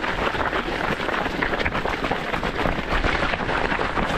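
A runner's footsteps and the rustle and jostle of clothing and gear, close on a head-mounted camera, as a steady dense crackling noise.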